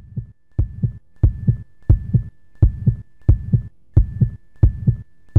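Heartbeat sound effect: steady lub-dub double thumps, about ninety pairs a minute, swelling up over the first second, with a faint steady high tone behind.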